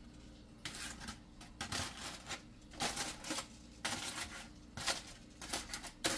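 Aluminium foil crinkling and rustling in a string of short, irregular bursts, as a foil-wrapped rack of baked ribs is handled.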